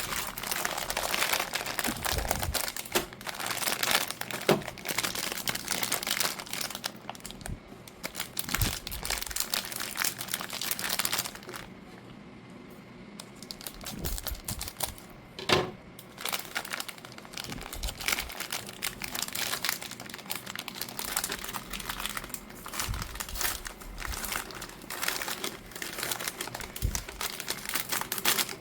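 Cookie snack packaging crinkling and rustling as it is handled and opened by hand, with a quieter pause about halfway and a sharp snap just after it.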